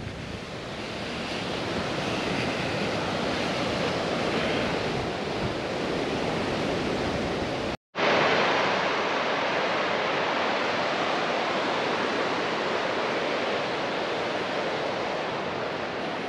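Steady, even rushing of the Sheep River's fast water and falls, heard as a broad hiss; it cuts out for a moment about eight seconds in and then resumes.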